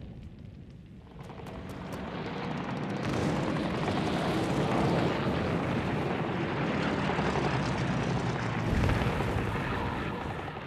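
Aircraft engine roar that builds over the first few seconds and then holds steady, with a deeper boom about nine seconds in.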